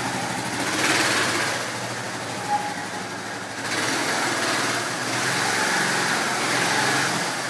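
Small motorcycle running as it is ridden slowly past, growing louder about a second in and again from about four to seven seconds in.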